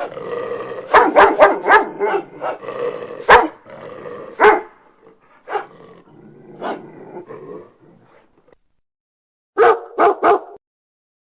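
A dog barking several times in sharp, irregular barks, with rougher growl-like sound between them, fading out after about eight seconds. Near the end come three short, quick calls.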